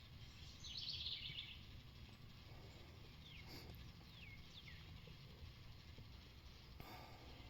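Faint songbird calls: a short, rapid buzzy trill about a second in, then several quick down-slurred chirps a few seconds later, with two faint clicks.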